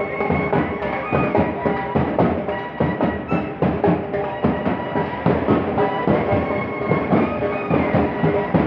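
Uniformed marching band playing: large bass drums and snare drums beating a quick, dense rhythm under a held melody line.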